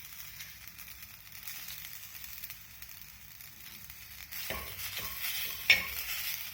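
Ground spices roasting in a little ghee in a hot pan: a soft, steady sizzle. In the second half a spoon scrapes and stirs the mix a few times, then clinks sharply against the pan.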